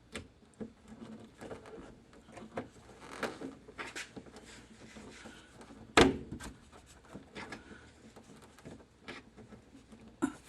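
Scattered small clicks, taps and rubbing of a screwdriver and fingers working a rubber window weatherstrip into a pickup cab's window opening, with one sharper knock about six seconds in.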